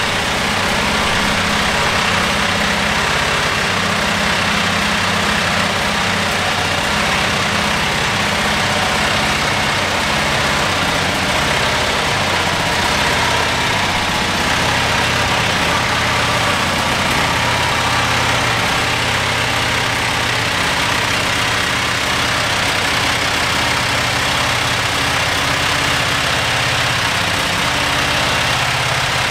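The Up-Right scissor lift's old air-cooled Wisconsin two-cylinder engine running steadily as the lift drives slowly under its own power.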